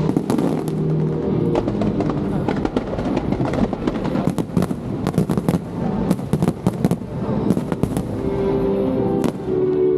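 Aerial fireworks going off in quick succession: bangs and crackling from bursting shells, over music with held notes.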